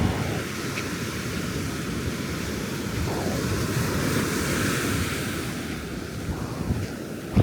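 Ocean surf breaking and washing up the beach, swelling near the start and again about three seconds in, with wind on the microphone.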